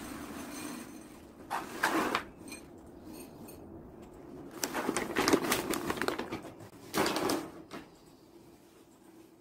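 Tofu cat litter pellets pouring from their bag into a ceramic bowl with a steady hiss. This is followed by three bouts of rustling and scraping as a hand levels the pellets and the litter bag is handled and set aside.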